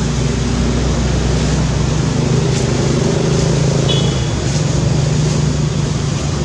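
Engine noise from a motor vehicle running steadily, a constant low hum under a broad hiss.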